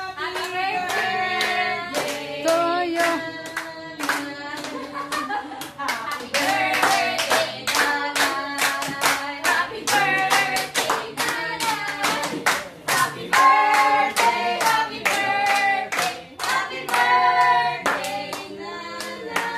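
A small group of people singing a birthday song together, clapping in time at about two claps a second.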